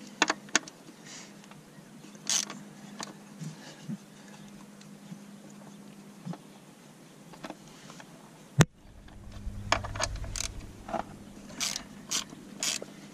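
Hand ratchet clicking in short runs while undoing the bolts that hold an ignition coil pack on an engine, with one sharp click about two-thirds of the way through and a low rumble for a couple of seconds after it.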